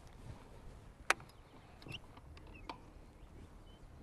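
A few sharp clicks, one much louder than the rest about a second in, with a few faint short chirps.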